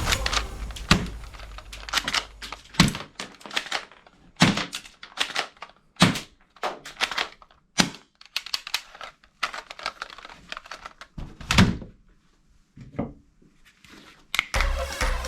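Plastic toy guns clicking and knocking: about a dozen sharp, irregular clicks and snaps from cocking, loading or firing, with short quiet gaps between them.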